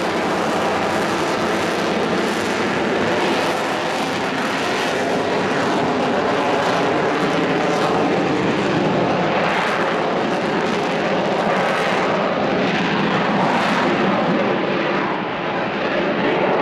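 F-35B Lightning II's single Pratt & Whitney F135 turbofan jet engine running loud and steady in flight, with slow swells in level and a brief dip near the end.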